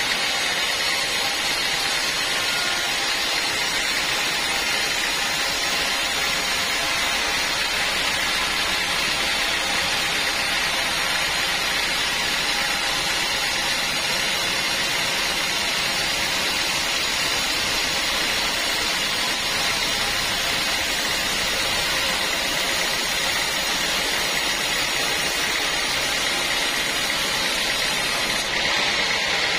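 Band sawmill running: a loud, steady, dense machine noise with a hiss in the upper range and faint steady tones, changing slightly near the end.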